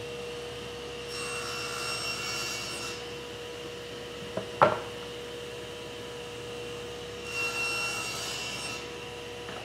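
Table saw running with a steady motor hum, making two short cross cuts in a hardwood board about six seconds apart, with a single knock between them as the board is shifted for the second pass. At the very end the motor's pitch starts to fall as the saw winds down.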